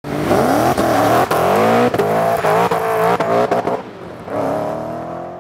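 Car engine revving hard. Its pitch climbs and breaks off several times in quick succession, with sharp cracks at each break, then drops back and makes one more long climb near the end.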